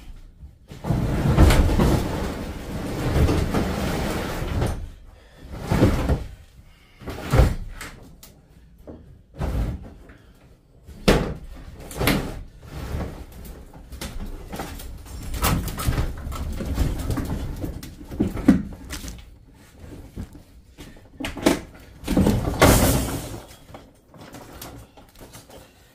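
Scrap metal being handled and loaded: a long stretch of scraping and rattling about a second in, then a string of separate metal knocks and thuds, and another longer burst of scraping near the end.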